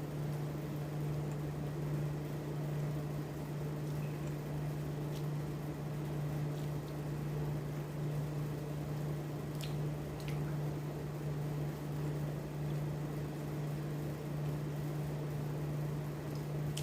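Steady hum of a running motor or electrical appliance, one low tone held without change, with a few faint light clicks over it.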